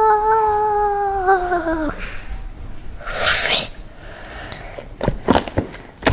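A person's voice holding a hummed or sung note, which sags in pitch and stops about two seconds in. A short, loud hiss follows, and near the end come quick wet squelching clicks of thick, foamy shaving-cream slime being stirred with a spoon in a plastic bowl.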